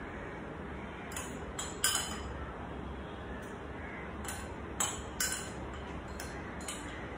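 A spoon clinking and tapping against glass bowls as cocoa powder is spooned out: a handful of scattered sharp clinks, the loudest about two seconds in, over faint steady background noise.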